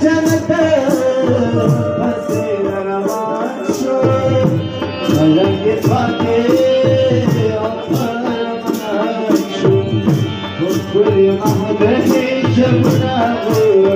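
Men singing into microphones over a steady beat of about three strokes every two seconds, in traditional style.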